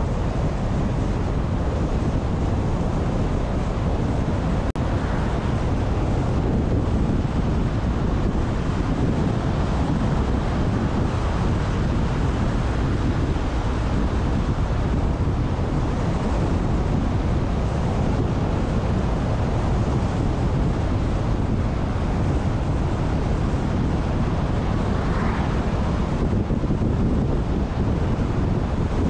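Steady wind and road noise of a car driving along a highway at speed, with wind buffeting the microphone. There is a brief sharp click or dropout about five seconds in.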